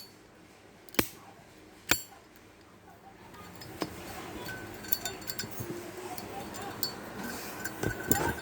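Zippo lighter lid snapped with three sharp, ringing metallic clinks about a second apart, then softer small clicks and handling noise. The clink is crisp and clear, the 'ting' a genuine Zippo is prized for.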